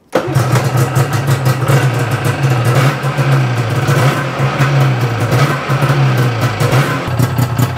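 Yamaha Phazer II snowmobile's freshly rebuilt fan-cooled two-stroke twin running steadily under its own power, a rapid even firing whose speed wavers slightly.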